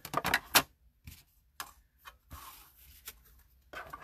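Handling noises at a hand-cranked die-cutting machine: clicks and knocks of its plastic plates and platform being positioned. A quick run of sharp clicks comes at the start, then scattered single clicks and a brief scrape.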